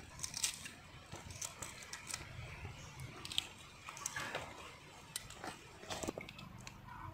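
Shells of hard-boiled eggs crackling and crinkling as several hands peel them, a scatter of small irregular cracks and clicks.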